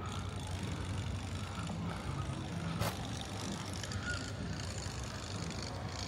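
Distant machinery running with a steady low drone, and a single sharp click about three seconds in.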